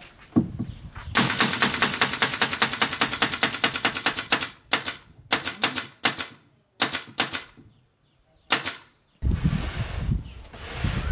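Pneumatic nailer firing nails into the MDF panels of a subwoofer box: a fast, even run of shots lasting about three seconds, then four shorter bursts. A rougher, lower-pitched noise takes over near the end.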